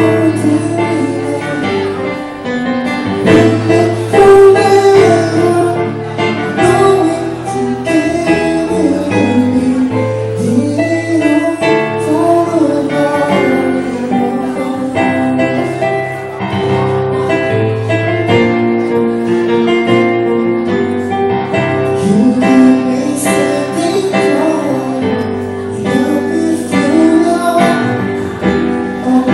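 Live acoustic music: a singer with instrumental accompaniment over a steady bass line.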